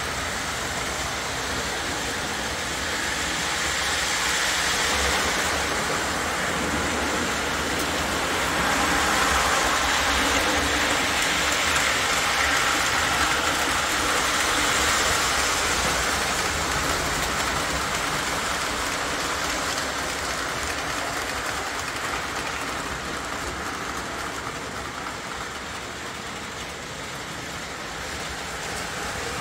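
Model train running on its track with a steady rolling rumble, growing louder for a while and then easing off as it passes the microphone and moves away.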